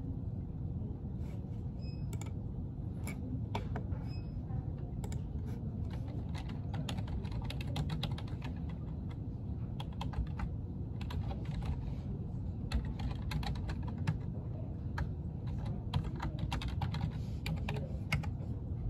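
Typing on a computer keyboard: irregular, quick key clicks, in runs with short pauses, over a steady low background rumble.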